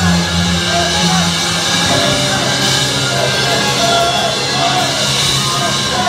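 Live rock band playing loud, with electric guitar and drums.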